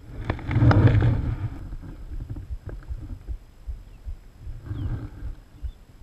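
Rumbling, rustling handling noise with a few knocks as an action camera on a kayak is moved and repositioned, loudest in the first second and a half, with a smaller burst near the end.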